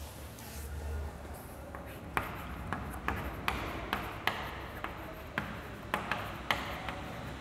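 Chalk tapping and scratching on a blackboard as words are written. From about two seconds in there is a run of sharp, irregular taps, a few a second, over a low steady hum.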